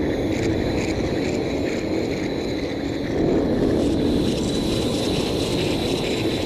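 Eerie forest wind drone: a steady, deep rumbling hum of wind with a thin, steady high tone above it, swelling slightly about halfway through.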